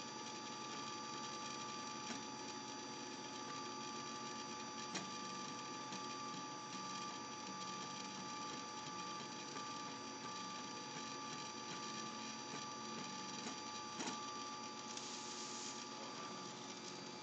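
Desktop RepRap-style 3D printer mid-print, its stepper motors whining in several steady tones as the print head and bed move. Three sharp clicks stand out, and a short hiss comes near the end.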